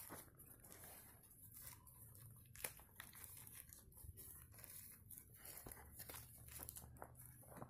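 Near silence with faint rustling and crinkling, and one sharp click about two and a half seconds in.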